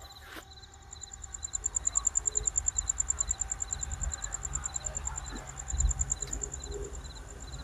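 Night insects calling: one gives a high, rapid pulsing trill, louder in the first half, while another repeats short chirps about twice a second.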